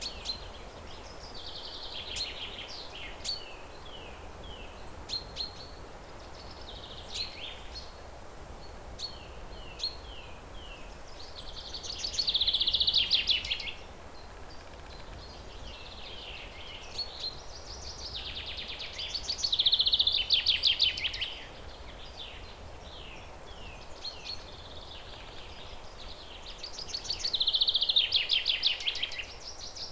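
Birds singing: short chirps and quick falling notes, with three louder rapid trilled phrases spaced about seven to eight seconds apart, over a steady faint background noise.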